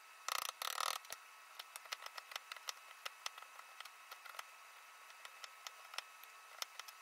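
Hand chisel paring wood out of a small mortise: two short scraping strokes just under a second in, then a run of faint, light clicks and ticks.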